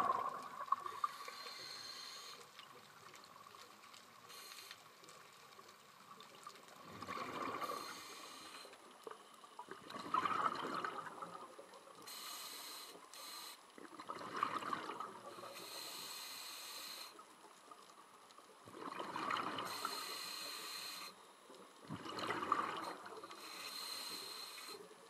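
Scuba diver breathing through a regulator: a bubbly rush of exhaled air every few seconds, alternating with a higher, shorter hiss of inhaling.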